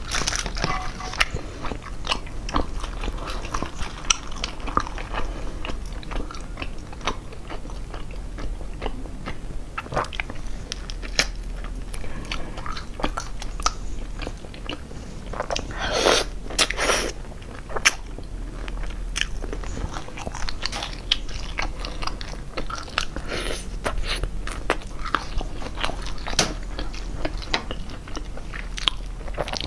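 Close-miked chewing and crunching of crispy fried food, a steady run of crackly bites, with a few louder crunches about sixteen seconds in.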